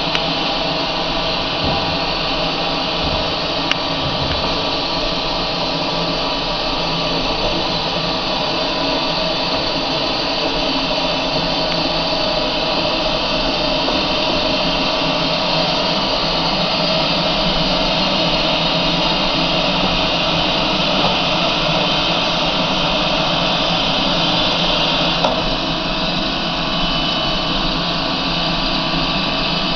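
Steady hiss and mechanical whine from a standing Shay steam locomotive, Sierra Railway No. 2, as it is slowly turned on a turntable.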